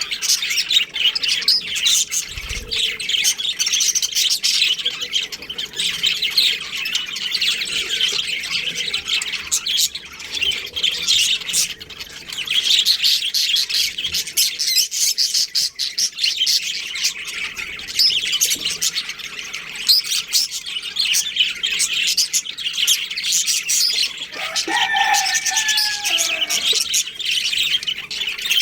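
Many small birds chirping and chattering without a break. About 25 seconds in, a louder, lower call with two falling notes cuts through the chatter.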